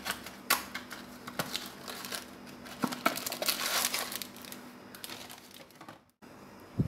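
Crinkling and rustling of packaging as a cardboard box of powdered food colour is opened and a foil and plastic colour sachet is pulled out and handled.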